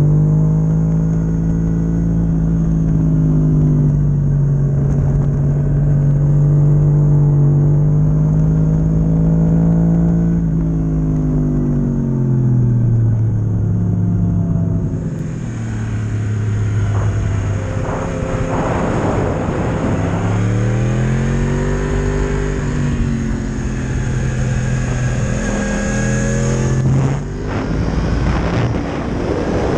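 Sport motorcycle engine heard from an onboard camera, held at high revs for about ten seconds, then dropping in pitch as the throttle is closed, climbing again about twenty seconds in and falling once more near the end. Wind rushes over the microphone through the second half.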